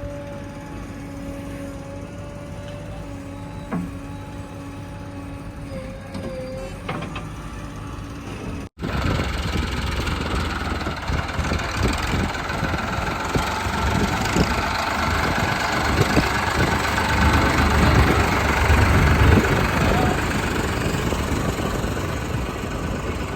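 Heavy diesel machinery engine running: a steady pitched hum at first, then, after a sudden break about nine seconds in, a much louder, rougher engine sound with a deep rumble that rises and falls.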